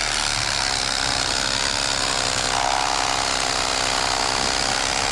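Electric fillet knife running steadily while it cuts a crappie fillet down the backbone: a motor hum with buzzing reciprocating blades, its pitch shifting slightly about halfway through.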